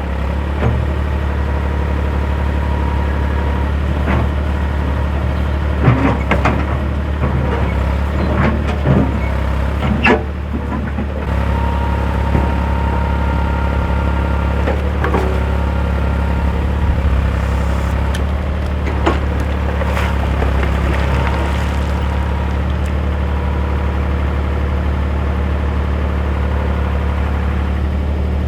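An engine running steadily at a low, even pitch, with scattered knocks and clanks over it. The engine note shifts slightly and picks up about eleven seconds in.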